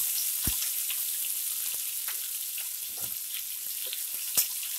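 Chopped onions sizzling in hot oil in a kadai, with a steady hiss, while a flat spatula stirs them, scraping and tapping the pan with scattered clicks and one sharper tap near the end.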